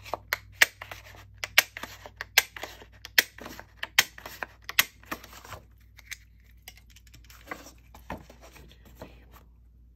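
Sharp clicks and taps from craft supplies (paper, cardstock and tools) being handled on a work surface, about two or three a second for the first five seconds, then a few scattered ones.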